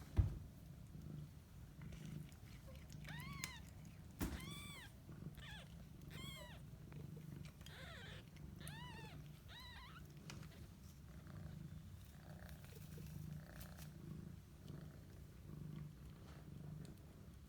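A cat purring steadily throughout, while five-day-old kittens give a run of short, high mews that rise and fall in pitch, from about three seconds in until about ten seconds in. A sharp knock sounds near the start and another about four seconds in.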